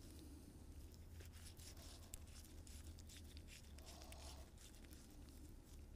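Near silence: faint sticky crackles and ticks of rubber-gloved hands packing high-temp grease into a tapered roller bearing, over a low steady hum.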